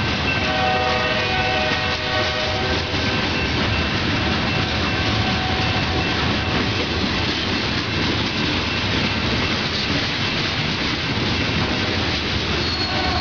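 Freight cars rolling past close by: steel wheels running and clattering over the rail joints in a steady rush, with a thin high ringing during the first three seconds.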